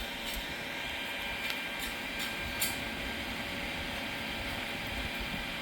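Stick welding arc burning steadily: a continuous crackling hiss with a few sharper pops.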